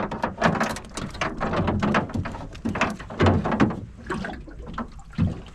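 A rapid, irregular run of wet slaps, splashes and knocks in a small fishing boat, over a steady low rumble of wind on the microphone.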